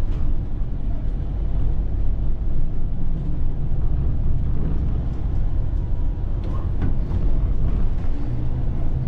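Volvo B8RLE bus's six-cylinder diesel engine and ZF EcoLife automatic gearbox running under way, heard from the driver's position as a steady low drone with road rumble. The engine note shifts about three seconds in and again near the end.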